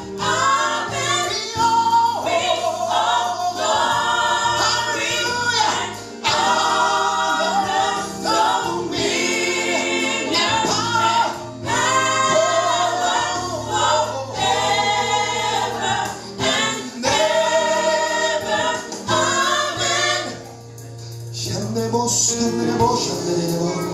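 Gospel worship music: a choir sings long held phrases over a steady low instrumental accompaniment, dropping away briefly about twenty seconds in before the singing picks up again.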